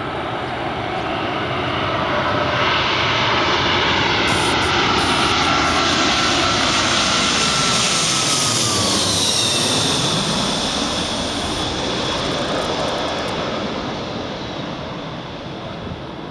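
Twin-engine widebody jet airliner on final approach passing low overhead: the jet engine noise swells, its whine drops in pitch as the plane goes over about nine seconds in, then fades as it flies away, leaving the rushing noise of its wake vortices.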